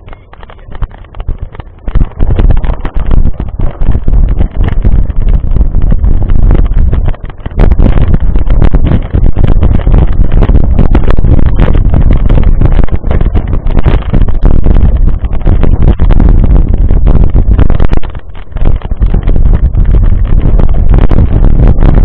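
Mountain bike rolling over a loose gravel dirt road: loud, constant rumble and rattle from the tyres and bike jolting over stones, mixed with wind buffeting the microphone. It gets much louder about two seconds in and dips briefly near the end.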